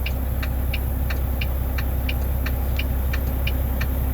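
Steady low rumble of an idling car, with a sharp regular ticking about three times a second over it.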